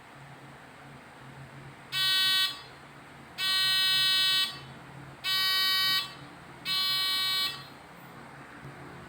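Buzzer of a homemade water overflow alarm sounding in four separate buzzes of uneven length, each lasting about half a second to a second, with short gaps between them.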